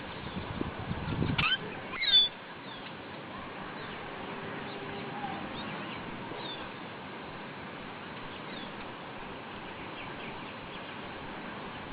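Small birds chirping: a few short, high chirps, loudest about two seconds in, then faint scattered chirps over a steady background hiss.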